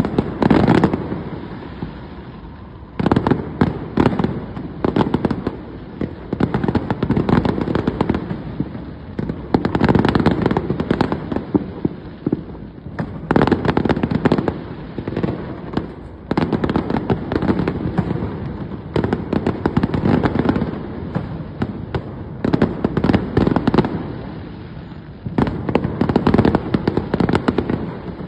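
New Year fireworks going off in dense volleys of sharp bangs and crackles. They come in waves every few seconds, with short lulls between.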